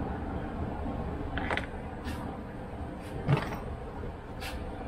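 Several small clicks and knocks of driveshaft parts and hand tools being handled at a bench vise, the sharpest a little over three seconds in, over a steady background noise.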